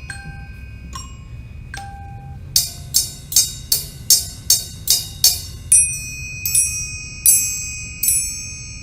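Instrumental music of bell-like struck mallet notes: a few sparse notes, then from about a third of the way in a steady run of about three notes a second over a held high tone.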